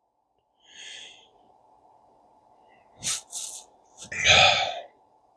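A few short breathy noises from a person: a faint one about a second in, two brief hissy ones around three seconds, and a louder, fuller breath about four seconds in.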